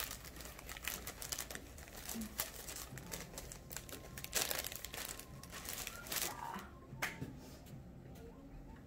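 Clear plastic packaging crinkling as it is handled and folded, a run of rustles that dies away about six and a half seconds in.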